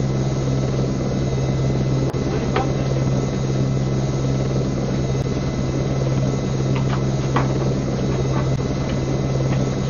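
Steady, loud mechanical drone like an engine running, with a low hum and a few faint high tones held unchanged throughout.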